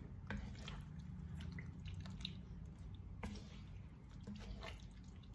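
Thick chicken curry sauce simmering in a pan, with small scattered pops and wet squelches as a wooden spatula stirs through it, over a steady low hum.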